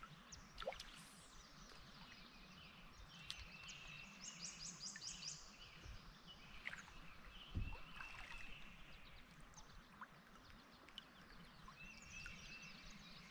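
Faint creekside ambience: small birds chirping and trilling over a soft wash of flowing water, with a single dull thump about seven and a half seconds in.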